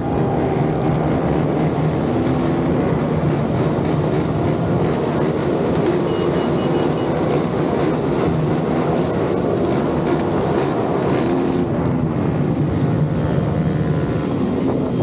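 Off-road motorcycle engine running continuously at varying revs, with wind buffeting the microphone.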